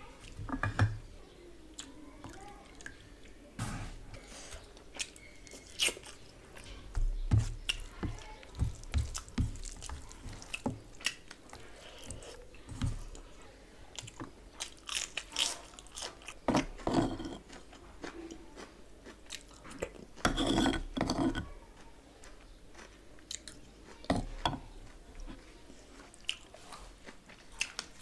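Close-miked mukbang eating: a person chewing and biting mouthfuls of chicken biryani rice and curried meat eaten by hand, with irregular wet clicks and smacks. Denser bursts of chewing come about a third of the way in and again past the middle.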